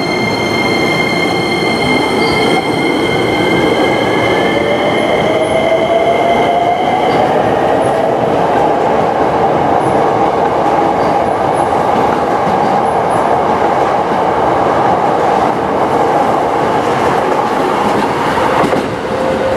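Hankyu 9300 series electric train pulling out of the station. The whine of its inverter-driven traction motors rises in pitch as it gathers speed, with wheel and rail noise as the cars run past. A steady high tone stops about seven seconds in, and near the end the sound changes abruptly to another train.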